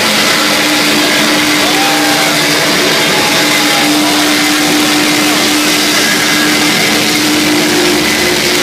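Shoegaze band's live noise section: a loud, unbroken wall of distorted electric guitar noise from effects pedals, with a held low tone sustained underneath.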